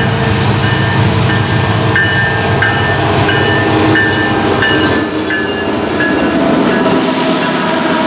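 Union Pacific freight train's lead diesel locomotives passing close by, wheels running on the rails. The engines' low rumble is strongest in the first half and eases off after about five seconds as the units go past. A thin, high tone comes and goes repeatedly through most of it.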